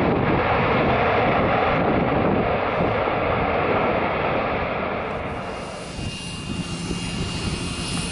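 Embraer E135 regional jet's twin rear-mounted turbofan engines on the landing roll, a loud, steady rush of jet noise. After about five seconds it drops to a quieter engine sound with a steady high whine and a low hum.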